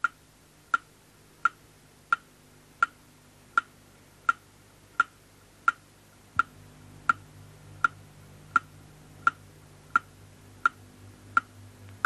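Clock ticking steadily, a little under one and a half crisp ticks a second, each with a short bright ring.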